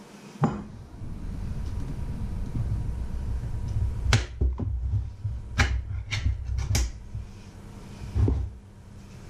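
Ring-pull lid of a tin can being opened: a knock near the start, then a series of about six sharp metallic clicks and snaps in the middle as the lid is pried up and torn around the rim, and one more click near the end, over low handling rumble.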